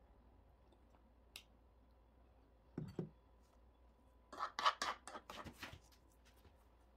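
Fork scraping and clicking against a wooden cutting board as charred skin is peeled off a roasted eggplant. There is a soft thump about three seconds in, then a quick run of scratchy strokes just before five seconds.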